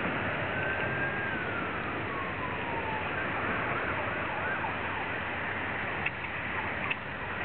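Steady wind and water noise, with a faint distant siren that holds one pitch for about a second and then slides down over the next two seconds. Two short sharp clicks come near the end.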